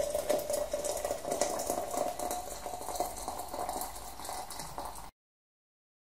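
Water poured from a large plastic water bottle splashing into the basins of a small model rock waterfall fountain. It gets gradually quieter, then the sound cuts off suddenly about five seconds in.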